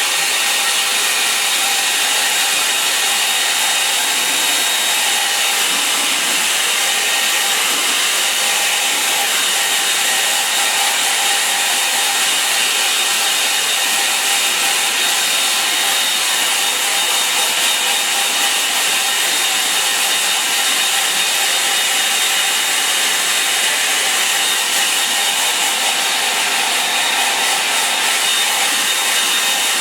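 Hair dryer blowing steadily to dry wet watercolour paint on paper: a loud, even rush of air with a faint steady whine.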